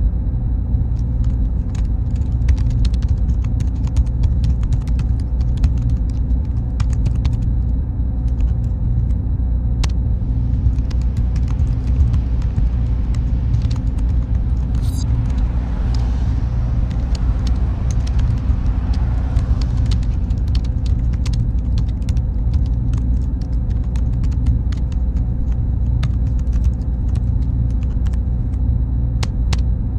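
Steady low drone of computer servers under the rapid clicking of computer keyboard typing, with a faint high whine that drops out about a third of the way in and returns near the end. A car passes by in the middle, its noise swelling and then fading.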